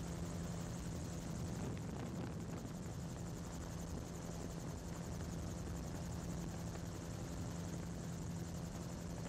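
MT-03 gyroplane in cruise flight, heard from on board: the engine and pusher propeller give a steady, even drone with a low hum and a hiss of rushing air, unchanging throughout.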